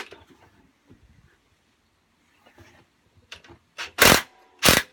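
Faint clicks of tools being handled, then two short, loud rasping bursts near the end from hand tools undoing the bolts that hold a lawnmower engine to its deck.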